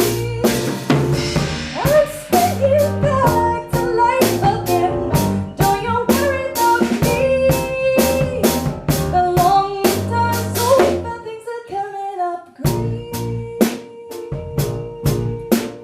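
Music with a steady drum-kit beat, a bass line and a melody; the bass and melody drop out briefly past the middle while the drums keep going.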